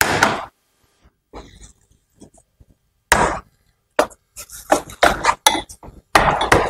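Fabric canopy of a child's tricycle stroller rustling as it is pulled open, with irregular plastic clicks from the canopy's multi-position folding hinge as it is set.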